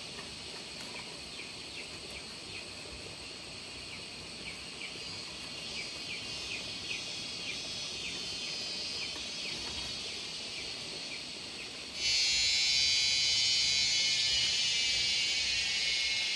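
Insects chirping in a steady chorus, with a short chirp repeating about twice a second. About twelve seconds in, it changes abruptly to a louder, higher-pitched steady insect drone.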